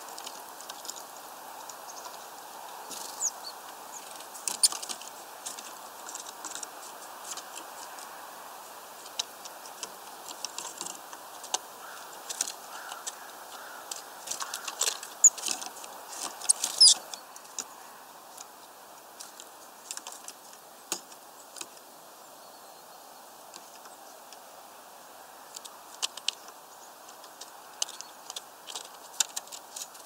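Great tits and a blue tit pecking at food in a wooden feeder: irregular sharp taps and clicks, busiest and loudest a little past the middle, over steady background noise.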